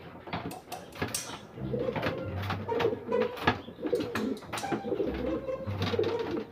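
Racing pigeons cooing over and over, with sharp clicks and knocks from a plastic pigeon transport crate being handled.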